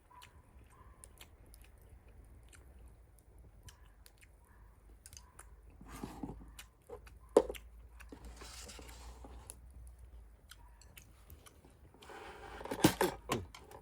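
A person chewing and eating, with small clicks and taps. There is a sharp knock about seven seconds in and a louder jumble of knocks and clatter near the end.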